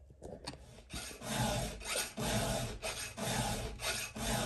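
Round chainsaw file rasping across the cutter teeth of a Husqvarna 2101's chain, sharpening the dull chain by hand. About five even strokes, starting about a second in.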